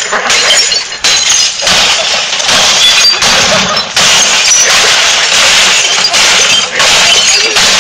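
Repeated bat blows smashing an RCA CRT television, with breaking glass and crunching plastic in a run of sudden crashes, one every half second to a second.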